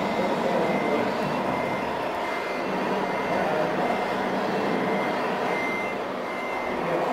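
Electronic reversing beeper from a scale RC truck's sound module, a thin high tone that comes and goes over a steady din of hall noise.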